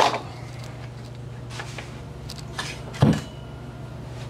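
A few light clicks and knocks of hard objects being handled, then one dull thump about three seconds in, over a steady low hum.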